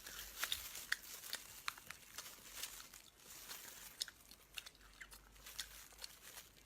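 Close-up sounds of a person chewing and eating: irregular wet mouth clicks and smacks, quiet and unhurried.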